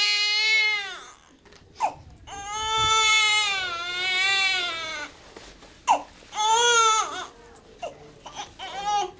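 Newborn baby crying: a wail ending about a second in, a sharp gasp, a long wail of nearly three seconds, then another gasp and several shorter cries toward the end.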